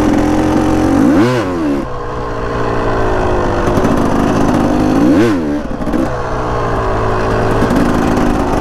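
Enduro trail motorcycle engine running under way, with two sharp rev blips about a second in and again about five seconds in, the pitch shooting up and dropping back each time.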